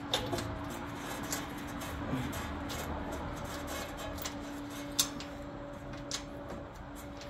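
Scattered light knocks and scuffs as a half-inch rubber stall mat is pushed and shifted against the mower frame's mounting pins while its holes are lined up. The sharpest knock comes about five seconds in. A steady low hum runs underneath.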